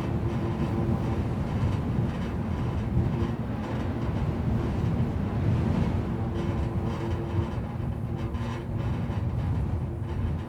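Wind and electrical hum mixing at an electricity pole like an aeolian harp: a few steady humming tones that swell and fade over a gusty low rumble.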